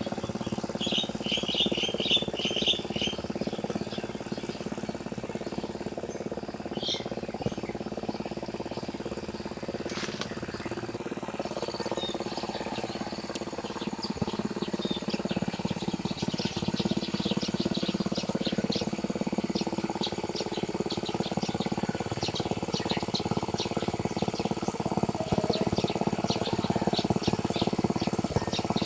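An engine running steadily as a rice paddy is ploughed, with birds chirping over it: a quick run of chirps about a second in, and many short chirps through the second half.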